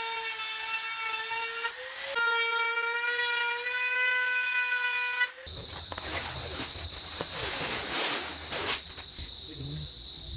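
An electric power tool's motor whines at a steady pitch, stopping briefly about two seconds in and starting again. About five seconds in it cuts off abruptly, leaving a steady high-pitched buzz over a rustling hiss.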